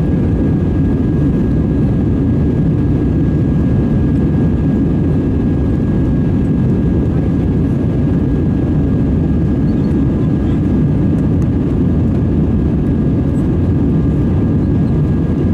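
Cabin noise inside an Airbus A320-216 climbing after takeoff: the steady low rumble of its CFM56 jet engines and the air rushing past the fuselage, with a faint steady high tone above it.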